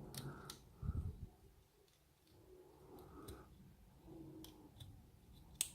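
Faint scattered clicks and a few soft knocks from handling a padlock and small metal tools, with one sharper click near the end.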